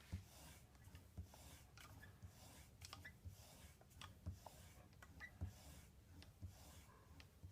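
Faint, rhythmic strokes of a chisel bevel in a roller honing guide being polished back and forth on a sharpening surface, about one stroke a second, each a soft hiss with a light knock.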